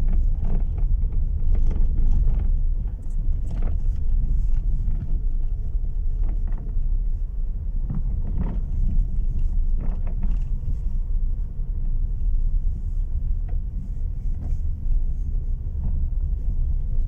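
Lada Vesta on the move with a steady low road rumble, cut by irregular sharp knocks every second or two from the electric power steering: the steering knock that is the fault in question.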